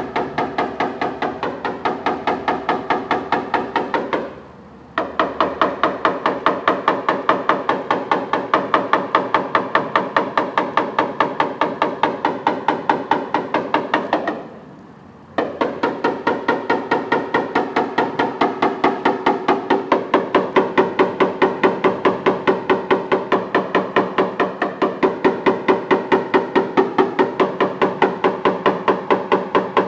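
Rapid, even tapping of a hammer and knockdown tool on a car's sheet-metal body panel, about three or four taps a second, with the panel ringing under the blows. This is the tap-down stage of paintless dent repair, levelling the metal. The tapping pauses briefly twice.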